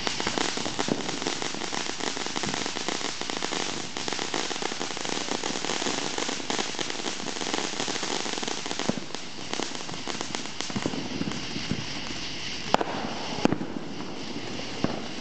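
Ground fountain firework spraying sparks, with a steady hiss and dense crackling throughout, and a few sharper pops near the end.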